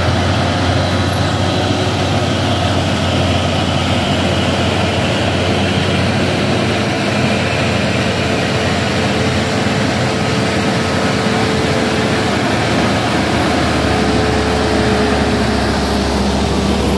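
Diesel engine of a Hino cargo truck running steadily as it drives up and passes close by, over the hum of other road traffic.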